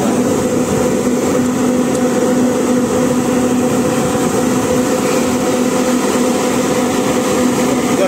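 Bus rooftop air-conditioning unit running, its electric condenser fans giving a steady, loud hum with a held low droning tone.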